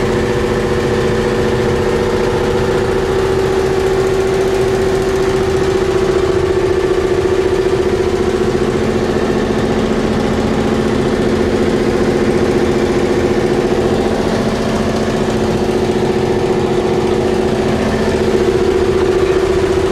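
Engine running steadily at an even speed: a loud, constant drone.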